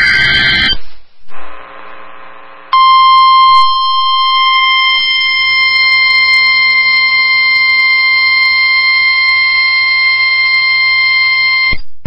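NOAA Weather Radio Emergency Alert System test signal. The last burst of the SAME digital header, a harsh data screech, cuts off under a second in. After a short gap comes the 1050 Hz weather radio warning alarm tone, one steady high beep lasting about nine seconds.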